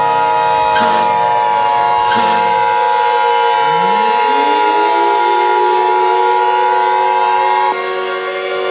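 Emergency Alert System attention signal: a steady two-tone electronic beep held for about eight seconds that cuts off abruptly near the end. Partway through, a civil defense siren starts winding up, rising in pitch, over music with a few thumps in the first couple of seconds.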